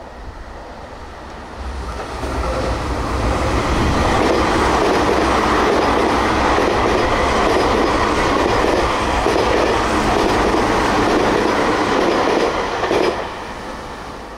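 Tokyu 5050-series electric commuter train approaching and passing close by: a loud, steady rumble of wheels on rails with a few clacks over the rail joints, dying away after the last car goes by near the end.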